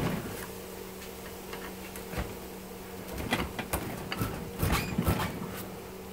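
Screwdriver prying and scraping at the copper windings of a dishwasher motor's stator clamped in a steel vise: scattered metal clicks and scrapes, coming thicker a few seconds in, over a steady low hum.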